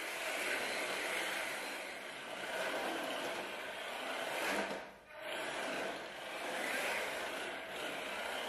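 SG216 Pro 1/16-scale four-wheel-drive RC drift car sliding across tile, its drift tyres giving a rasping scrape that swells and fades with each slide and drops out briefly about five seconds in.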